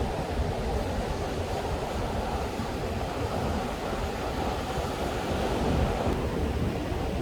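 Ocean surf breaking and washing onto a beach in a steady, continuous rush, with wind buffeting the microphone; one wave swells slightly louder a little before six seconds in.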